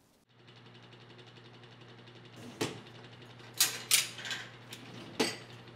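About four sharp clinks and knocks of things being handled at a kitchen counter and sink, with a few lighter ticks between, over a steady low hum.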